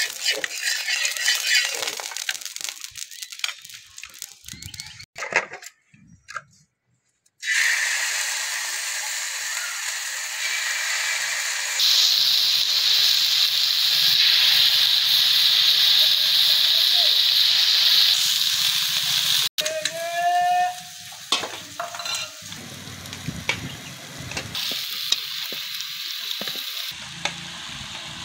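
Fish frying in hot oil, a steady sizzle. It breaks off briefly early on, is loudest through the middle, and is lower near the end.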